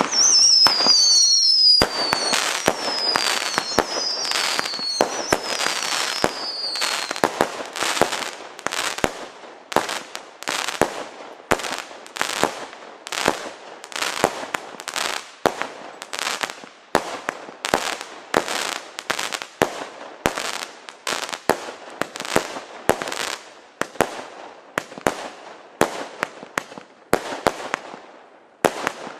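Klasek C6420B Breakboo fireworks cake firing shot after shot, about two reports a second. Over the first few seconds several falling whistles sound over the shots.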